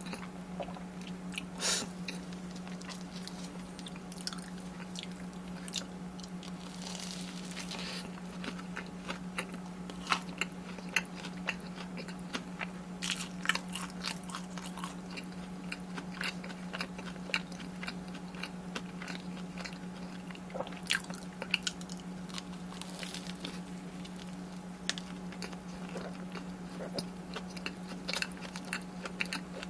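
Close-miked biting, crunching and chewing of fried corn dogs and snacks, with irregular crisp crackles from the fried coating. A steady low hum runs underneath.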